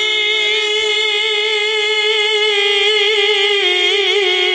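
A man singing a naat into a microphone, holding one long note with small ornamental turns, stepping down in pitch about three and a half seconds in and again near the end.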